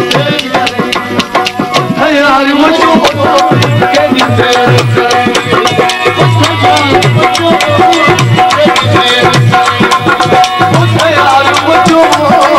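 Live Sindhi folk music: a dholak drum beats a fast, even rhythm under a wavering melody line.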